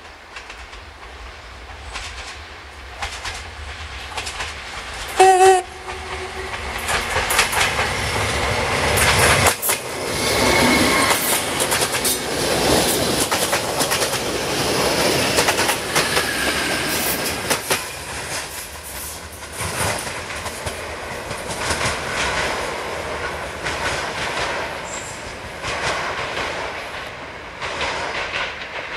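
Class 614 diesel multiple unit giving one short horn blast about five seconds in, then passing close by, its wheels clicking over the rail joints, before fading away.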